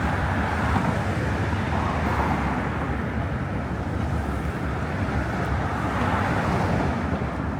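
Steady road traffic noise, an even rush of cars passing on city streets.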